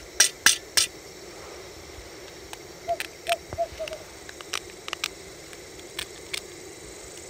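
Cooking gear being handled beside a camping gas stove: four sharp clicks in the first second, then scattered light clicks and knocks with a few short squeaks, over a steady low hum.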